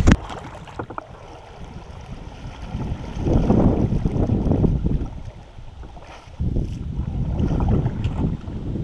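Water noise from a kayak being paddled down a shallow river, with wind rumbling on the microphone, swelling louder twice for a second or two. A couple of light knocks come about a second in.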